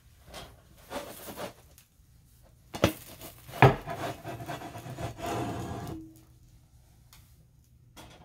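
Pan being handled: a few light clatters, then two sharp knocks about three seconds in, the loudest, then a couple of seconds of scraping and rubbing.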